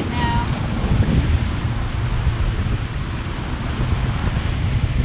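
Strong wind buffeting the microphone over the steady wash of sea water on a boat offshore.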